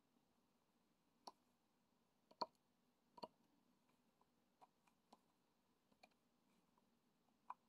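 Faint, irregular small clicks and taps, about a dozen over several seconds, the loudest about two and a half seconds in: a diamond-painting pen picking up resin drills and pressing them onto the sticky canvas.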